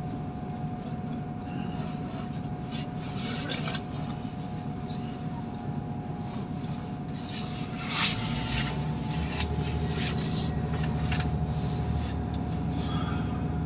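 Inside a Class 158 diesel multiple unit: the underfloor diesel engine running at idle under a steady whine. About eight seconds in there is a knock, then the engine's rumble grows louder as the train starts to pull away.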